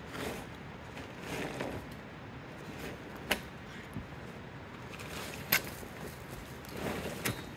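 Nylon tent fabric rustling in several swells as a Coleman instant pop-up tent is unfolded and its frame raised, with three sharp clicks from the frame poles, the second the loudest.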